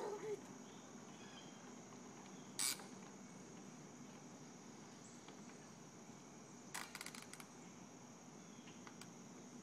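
Quiet outdoor background with a faint, steady, high-pitched insect drone. A short sharp sound about two and a half seconds in and a brief run of clicks about seven seconds in.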